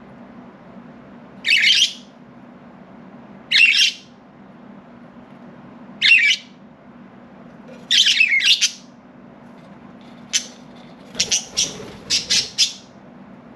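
Pet budgerigars calling: single high, harsh chirps about every two seconds, then a quick run of short chirps in the last few seconds.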